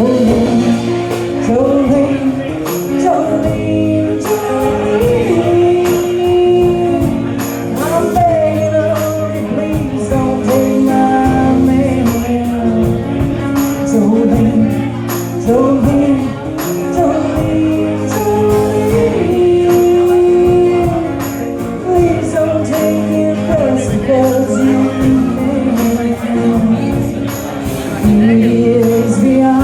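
Live band music with a steady drum and cymbal beat and a bending lead melody over sustained chords.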